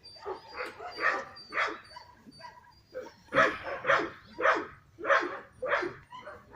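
Dog barking repeatedly: a string of short barks, with five loud ones in quick succession, about two a second, in the second half.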